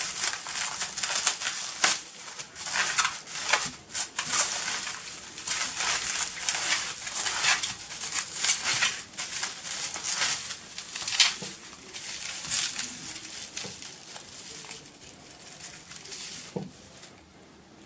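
Packaging wrap crinkling and rustling in irregular crackles as it is pulled off by hand, dying down over the last few seconds.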